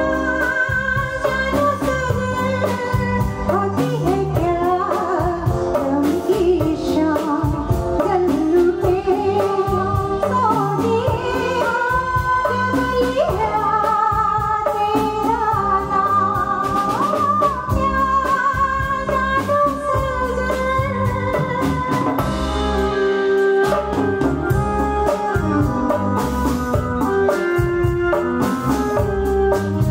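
A woman singing a Hindi film song live, backed by a band of drum kit, hand drums, keyboards and guitars.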